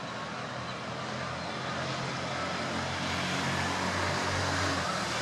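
Diesel-hauled passenger train pulling out, twin WDG3A ALCo locomotives accelerating: a steady rumble and rush of the train running, with a low engine drone underneath that slowly grows louder.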